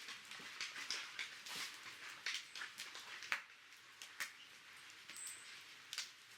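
Wood campfire crackling and popping: irregular sharp snaps over a soft hiss, with a brief faint high squeak about five seconds in.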